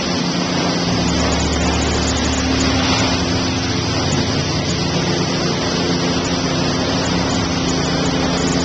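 Car wash machinery running: a steady mechanical hum under a loud, even hiss.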